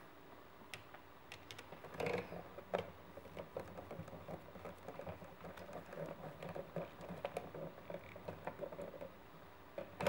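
Small irregular clicks and rattles of a screwdriver turning the brass terminal screws of an electrical outlet and of wires being handled at the terminals, with a louder clatter about two seconds in.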